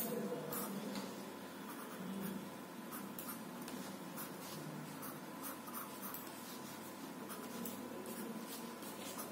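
Pencil drawing on paper: a run of short, quick scratching strokes, coming irregularly throughout.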